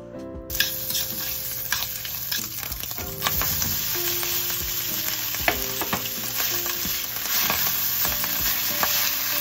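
Strips of ham and crab stick sizzling as they are stir-fried in a stainless steel frying pan, with metal chopsticks clicking against the pan as they are turned. The sizzling starts suddenly about half a second in.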